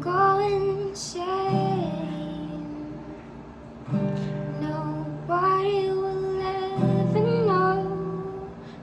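A woman singing long, sliding notes over an acoustic guitar. The guitar plays a new chord every two to three seconds and lets each one ring.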